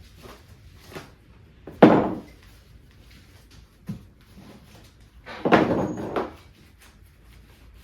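A ratchet strap being handled and shoved down into a fabric storage pouch: a sharp thump about two seconds in, a small knock near four seconds, and a longer clattering thump about five and a half seconds in.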